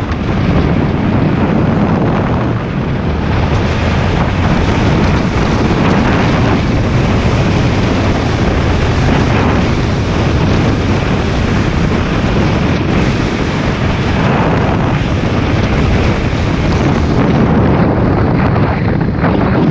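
Wind rushing over the microphone at riding speed, with the Yamaha Exciter 150's single-cylinder four-stroke engine running steadily underneath.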